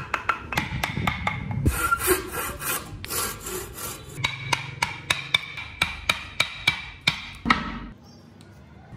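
Hand saw cutting through hardwood in quick, even back-and-forth strokes, each stroke a sharp rasping scrape. The sawing stops about eight seconds in.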